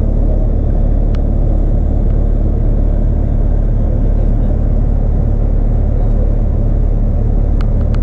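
Steady low rumble of a coach bus in motion, heard inside the passenger cabin: engine and road noise. A short click about a second in and a few more near the end.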